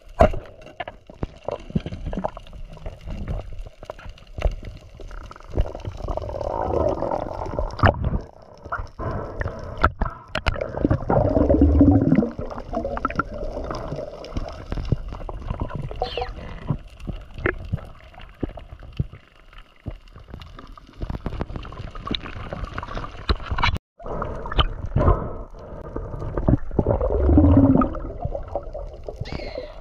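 Water gurgling and sloshing close to the microphone, with scattered clicks and knocks and a few louder bubbling surges that drop in pitch.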